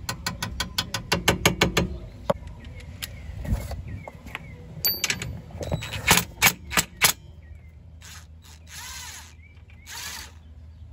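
A mallet tapping on a car's steel rear suspension arm in a quick even run of about five or six blows a second, stopping about two seconds in. Scattered knocks and clicks follow, then a few loud sharp strikes, and near the end two short whirring runs of a cordless driver turning a bolt.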